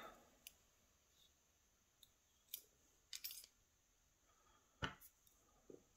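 A handful of faint, short metallic clicks and taps from small lock parts as the driver pins are worked out of a pin-tumbler cylinder housing with a follower bar, the loudest about five seconds in.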